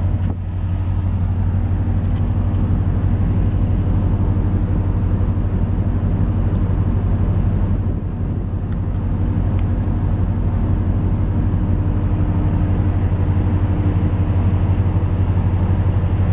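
Steady low drone of a container ship's engines and machinery, with a fast, even throb underneath.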